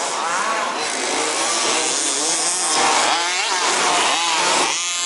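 Small two-stroke petrol engines of 1/5-scale off-road RC buggies revving up and down as they race, pitch rising and falling again and again. Near the end one engine settles into a steady high note.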